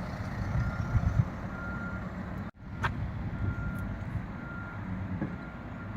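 Reversing alarm on construction plant beeping a single steady tone about once a second, each beep about half a second long, over low background noise. The sound drops out briefly about halfway through.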